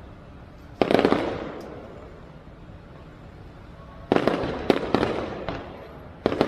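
Fireworks going off: a sharp bang about a second in with a crackling tail that dies away, then from about four seconds a quick run of several bangs.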